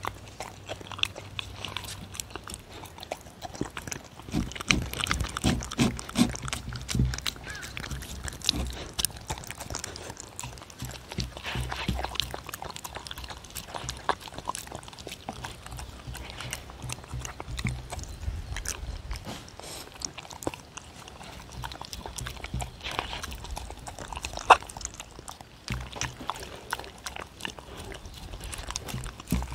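A dog eating soft minced turkey from a wooden bowl, close to the microphone: irregular chewing, licking and smacking, with many small clicks.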